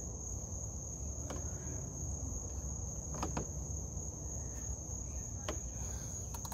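A few light clicks and taps as a swivel socket wrench and a long box wrench are worked onto a thermostat-housing bolt, trying to seat the socket on the bolt head. A steady high-pitched tone runs underneath.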